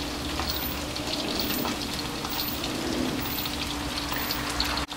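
Chicken wings deep-frying in hot oil over medium heat: a steady bubbling sizzle with small crackles throughout. It cuts out for an instant near the end.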